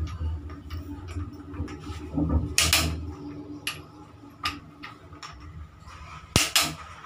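Torque wrench working the crankshaft main bearing cap bolts on a bare Mahindra Scorpio 2.6 engine block: a few separate sharp metallic clicks and clanks, the sharpest about six seconds in. A low hum sits under the first three seconds.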